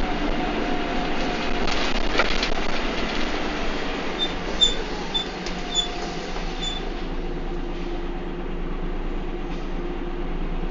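Bus engine and transmission running under way, heard from inside the bus, with a steady drone whose pitch shifts a little and rattles from the body. About four seconds in come five short high-pitched squeaks over roughly three seconds.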